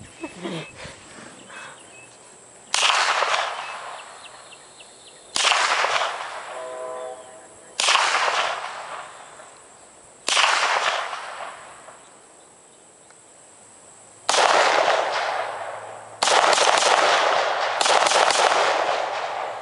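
AR-15-style semi-automatic rifle firing: single shots about every two and a half seconds, each trailing off in a long echo, then a quicker string of shots in the last few seconds.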